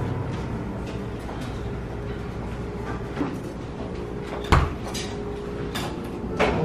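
Café room noise with a steady low hum, broken by a few knocks and clinks of dishes; the loudest is a sharp clatter about four and a half seconds in.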